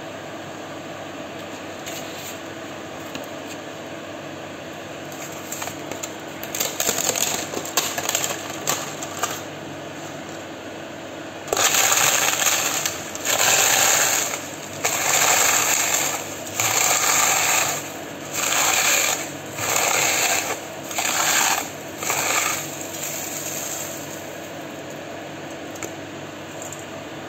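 Brittle roasted papad being crushed by hand in a steel bowl: scattered crackling at first, then eight loud crunching bursts of about a second each at an even pace, over a steady background hum.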